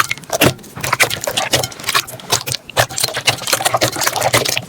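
Slime being squeezed and worked by hand close to the microphone, making rapid, irregular wet clicks, pops and crackles, with a brief pause about halfway through.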